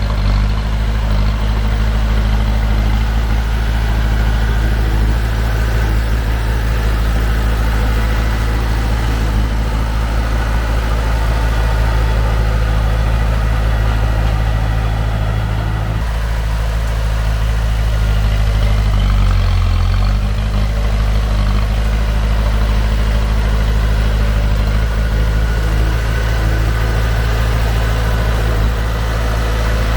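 Heavy diesel engine running steadily at low speed, its note dipping briefly about two-thirds of the way through.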